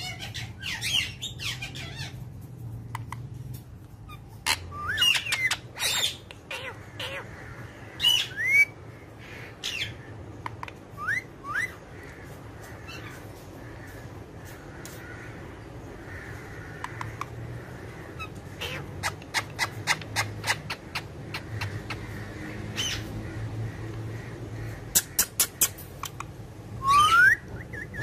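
Rose-ringed (Indian ringneck) parakeets calling: short sharp squawks and clicks scattered throughout, with a few rising whistles, the loudest near the end.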